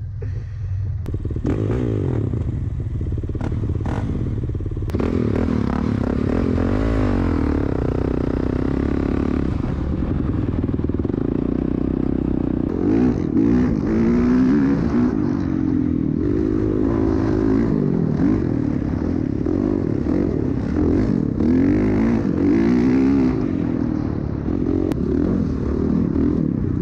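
Dirt bike engine running as it is ridden, its revs repeatedly climbing and dropping with throttle and gear changes, along with some rattling.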